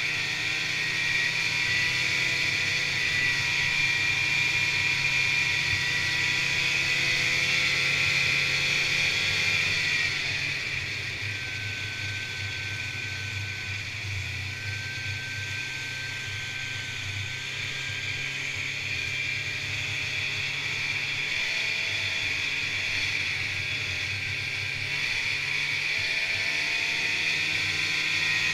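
Snowmobile engine running steadily while the sled rides along a trail. It eases off about ten seconds in and picks up again toward the end.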